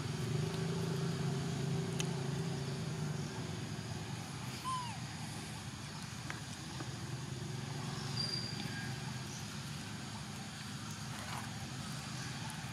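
Outdoor ambience with the low, steady hum of a motor vehicle's engine, loudest in the first few seconds and fading, then returning faintly. A single short chirp about five seconds in.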